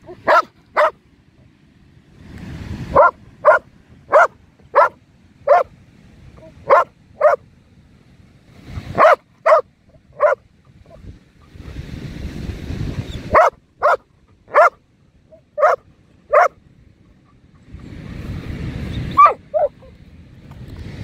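Belgian Malinois barking hard in runs of two to four sharp, loud barks about half a second apart, with short pauses between runs. Between the runs a rushing noise swells and dies away four times.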